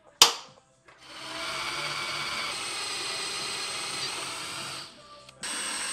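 A spring-loaded automatic center punch snaps once, sharply, on aluminum C-channel. Then a cordless drill runs steadily, boring a hole through the aluminum, stops just before the end and starts again for the next hole.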